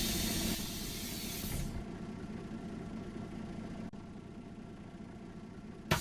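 Bus riding, heard from inside: a hiss of compressed air from the bus's air system fades out in the first second or two, leaving the low running rumble of the bus. A sharp click comes just before the end.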